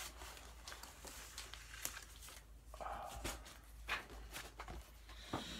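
Faint rustling and crinkling of paper and a cardboard mailer being handled, with a few light taps and scrapes as the contents are pulled out.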